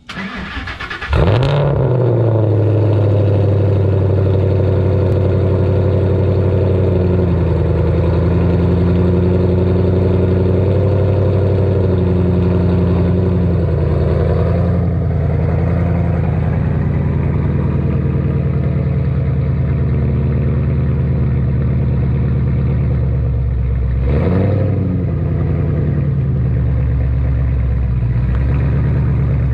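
Ford Shelby GT500's supercharged V8 starting up about a second in with a short rev flare, then running at a steady low idle through the exhaust. One brief rev blip comes near the end.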